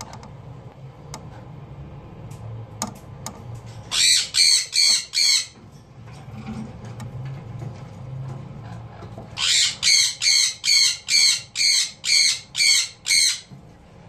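Sun conure squawking in harsh, evenly spaced runs: about four loud squawks some four seconds in, then a longer run of about ten at roughly three a second near the end.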